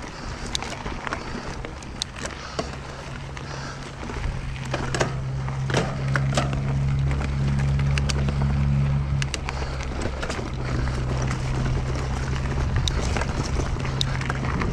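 Mountain bike rolling fast down a dirt trail: tyre noise with frequent sharp clicks and knocks from the bike, and a steady low hum that comes in about four seconds in and fades near the end.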